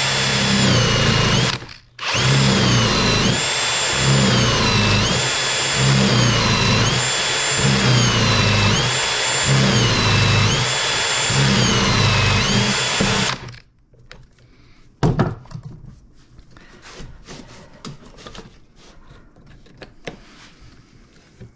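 Cordless drill boring a 35 mm hinge cup hole into a wooden cabinet door, plunged in and out repeatedly. The motor whine dips in pitch each time the bit bites, about every second and a half, with a brief stop about two seconds in. It stops after about thirteen seconds and is followed by quieter clicks and handling of the jig, with one sharp click.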